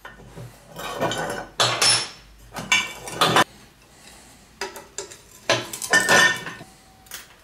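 Hand tools and metal parts clinking and clattering on a steel workbench while an aluminium brake pedal assembly is taken apart with pliers and a wrench: about half a dozen irregular sharp metallic knocks with a short ring.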